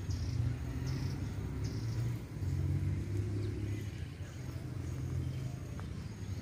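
Outdoor ambience: a steady low rumble that swells and eases, with faint short high chirps repeating about once or twice a second.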